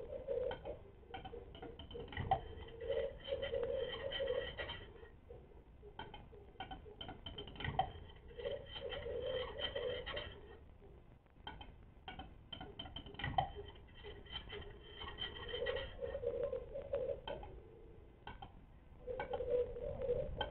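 Male western capercaillie's display song, repeated about every five or six seconds: a run of dry clicks, then a couple of seconds of scraping, wheezy whetting.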